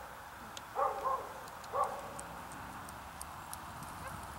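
Young border collie barking, three short barks in the first two seconds while it chases sheep.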